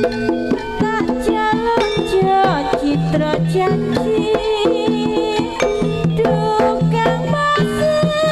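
Live Javanese jaranan accompaniment: a gamelan ensemble playing a busy metallophone melody over rhythmic hand-drum strokes, with a few sliding pitches among the notes, played loud through a PA sound system.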